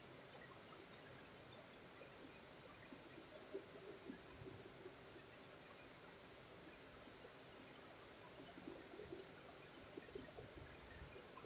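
Faint crickets trilling steadily at a high pitch, otherwise near silence.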